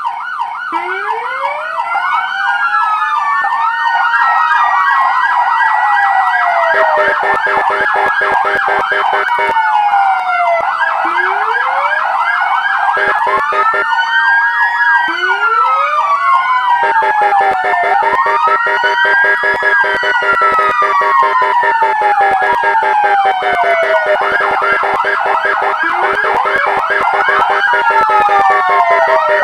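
Several fire truck sirens sounding at once, their wails rising and falling out of step with one another over a fast, steady pulsing tone.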